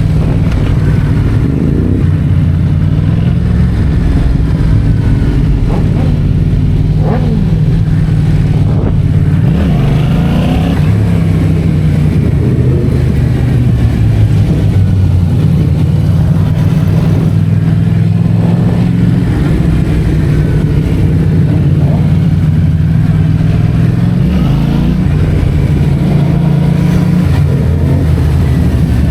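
Yamaha MT-07's parallel-twin engine running through an Akrapovic titanium exhaust at steady road speed, with a few brief rises and falls in revs.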